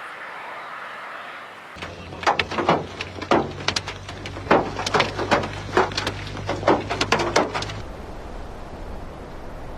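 A rapid, irregular series of sharp knocks and clatters, about twenty strikes, starting about two seconds in and stopping abruptly near the end, over a low steady hum.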